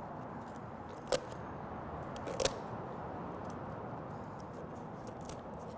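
Wüsthof poultry shears snipping along the backbone of a raw turkey. Two sharp snips stand out, about a second in and about two and a half seconds in, with a few fainter clicks between and after, over a steady background hiss.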